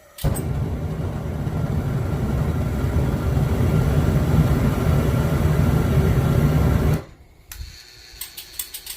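Homemade venturi gas forge burner made from clothes-dryer burner parts, lit and running steadily for about seven seconds, then cutting off suddenly. Near the end comes rapid clicking from the dryer's gas solenoid valve, which is struggling against the pressure from a high-flow regulator it is only rated at half a PSI for.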